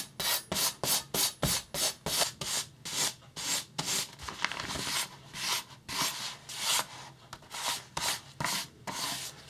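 Yanagiba blade slicing repeatedly into the edge of a folded newspaper: a quick run of short, rasping paper-cutting strokes, about two to three a second. It is a paper test of the edge's sharpness after the medium-grit stone, before moving to the 6000 finishing stone.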